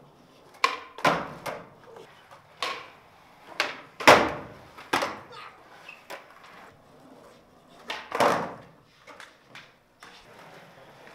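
Skateboards popping, landing and slapping on a hard indoor floor: a series of sharp clacks, the loudest about four seconds in, each echoing briefly in the hall.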